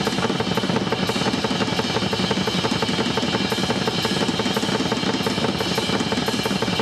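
Drum kit played fast and without a break: a dense run of rapid drum strokes under ringing cymbals.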